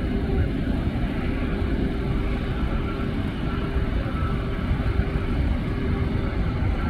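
Airliner jet engines at taxi power: a steady rumble with a faint steady hum over it.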